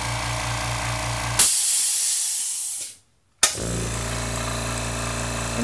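California Air Tools 2010A 1 HP oil-free compressor running with a steady hum, switched off about a second and a half in with a sudden loud hiss of air venting that fades away. After a brief gap the half-horsepower California Air Tools 2050A compressor starts and runs steadily.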